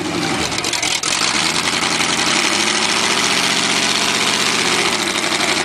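Chevy mud truck's engine running under load as it works through deep mud, loud and steady, with the revs rising slightly and falling back over the middle seconds.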